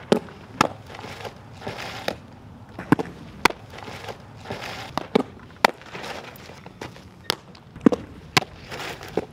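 Softballs smacking into leather fielding gloves during catcher throw-downs: a series of sharp pops, several in pairs about half a second apart.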